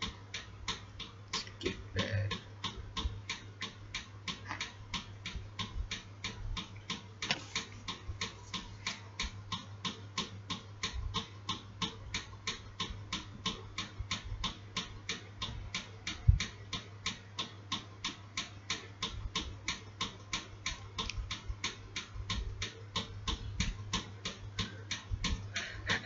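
Steady, even ticking, about three ticks a second, over a low hum, with a single thump about sixteen seconds in.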